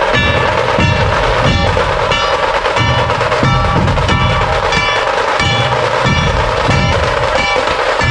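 A dhol-tasha troupe playing: massed dhol drums and tasha keep up a dense, driving rhythm, with a ringing metallic stroke about every two-thirds of a second.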